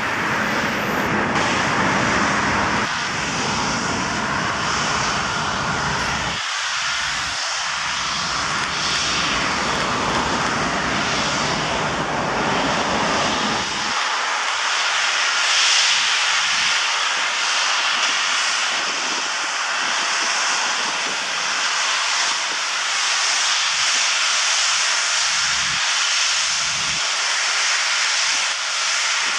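Airbus A340-600's four Rolls-Royce Trent 500 turbofans running at low power as the airliner rolls along the runway, a steady jet hiss and whine. A low rumble of wind on the microphone fills the first half and stops suddenly about halfway through.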